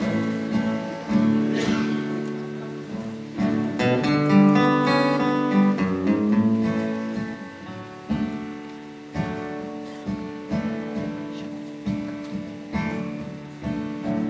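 Live acoustic guitar and electric guitar playing a slow instrumental intro: ringing, sustained chords at first, then evenly spaced strummed chords, about one every three-quarters of a second.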